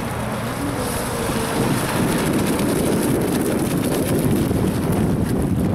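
Radio-controlled speedboat running on the water: a faint motor whine in the first second or so, then the hull and spray noise grows louder from about two seconds in as the boat runs close by, with wind on the microphone.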